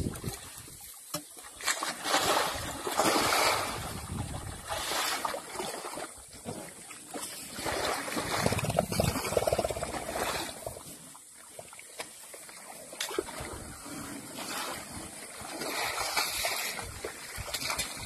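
Wet mud splashing and squelching in uneven bursts as elephants shift, lie and walk in a mud wallow.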